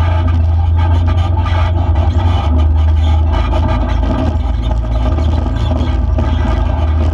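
Off-road vehicle's engine running steadily at low speed on a rough dirt road, with frequent small knocks and rattles from the rocky surface.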